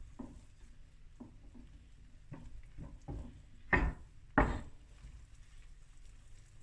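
Hands mixing a wet yeast dough in a glass bowl: soft rubbing and squishing of flour and dough, with a series of short knocks as the bowl shifts on the wooden board, the two loudest about four seconds in.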